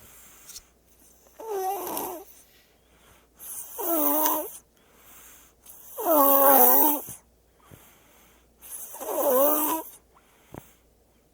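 Baby snoring: four snores about two and a half seconds apart, each lasting about a second with a wavering pitch, with faint breaths between them.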